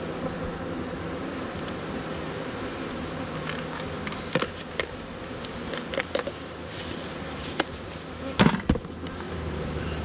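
A mass of honeybees buzzing steadily over the open top bars of a hive box. A few sharp knocks come through, the loudest a cluster about eight and a half seconds in.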